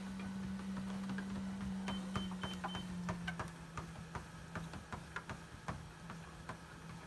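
Treadmill motor humming under a dog's claws ticking on the moving belt. About two seconds in, the console beeps four times, and just after, the motor's hum drops in pitch as the belt slows.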